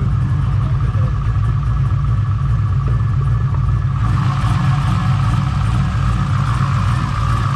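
Built, cammed LS1 V8 with an LS6 intake, swapped into an Infiniti G35, running steadily at idle after start-up. A brighter hiss joins the engine sound about four seconds in.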